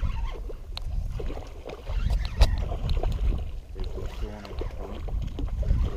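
Wind rumbling on the microphone, with scattered knocks and taps of handling on a small fishing skiff; one sharp knock about two and a half seconds in.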